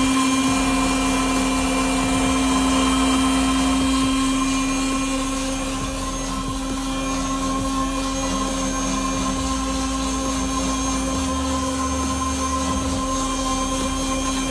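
Electric motor of a drink-dispensing machine running steadily, a continuous low hum with fainter higher tones above it.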